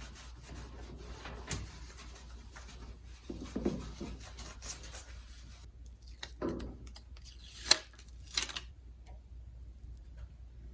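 Hand work with sticky-back neoprene rubber padding: irregular cutting, tearing and rubbing sounds with scattered small clicks, and one sharp click a little past the middle.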